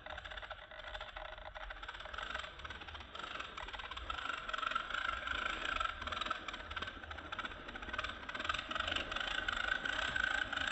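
Electric drive motor and gearbox of a 1/10-scale RC crawler whining steadily as it crawls over loose dirt and stones. The whine grows louder about four seconds in as the truck comes up close.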